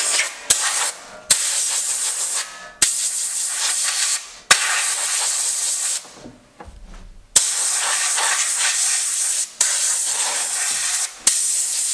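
Compressed air blasting from an air compressor blow gun in about eight bursts of one to two seconds, each starting abruptly and cutting off, with short pauses between, a loud high hiss as it blows water and dust off bare sheet steel.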